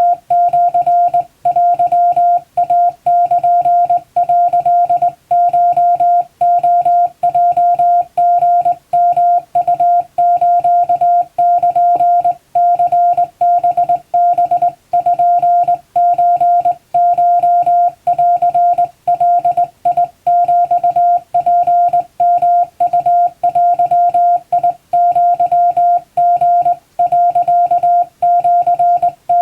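Japanese (wabun) Morse code sent by hand on a telegraph key: one steady mid-pitched beep tone keyed rapidly on and off in dots and dashes, with short pauses between characters every second or two.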